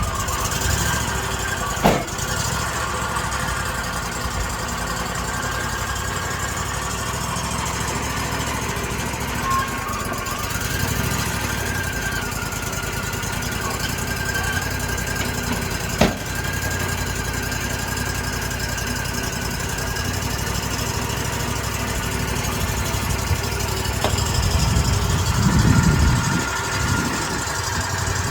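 A portable band sawmill's engine running steadily, with a constant whine above it. Two sharp knocks come about two seconds in and again past the middle, and the engine grows louder in a low rumble near the end.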